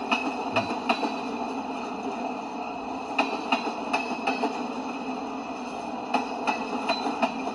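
Freight train of tank cars rolling past: a steady rumble of steel wheels on rail, with a clickety-clack of about four sharp clicks every three seconds or so as each pair of trucks crosses a rail joint.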